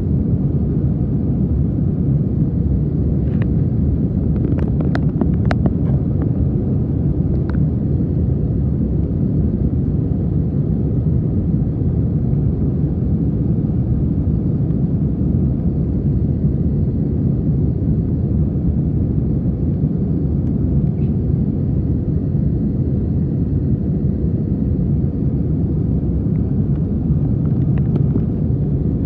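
Steady low rumble of airliner cabin noise in cruise: engines and rushing airflow heard from inside the cabin. A few faint clicks come about four to six seconds in.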